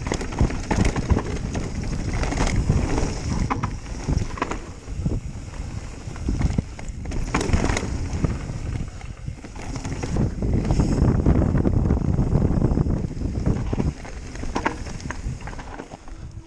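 Mountain bike descending a dirt trail: wind rushing over the microphone, tyres on dirt, and frequent rattles and knocks from the bike over bumps. The wind rush is loudest a little past the middle, then dies down as the bike slows near the end.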